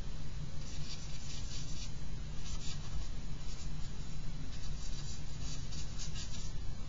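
Charcoal stick scratching on paper in short runs of quick strokes, with pauses between them, as shading is drawn in.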